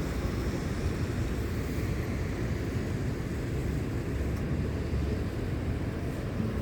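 Steady low rumble of riding a bicycle: wind buffeting the microphone along with road noise.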